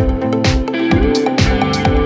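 Background music: an electronic dance track with a steady kick-drum beat, hi-hat-like percussion and a plucked melody.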